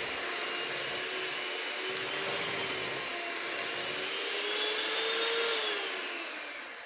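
Electric mixer running steadily, beating a peanut butter, powdered sweetener and coconut flour mixture until fluffy. Its whine rises a little, then falls as the motor winds down near the end.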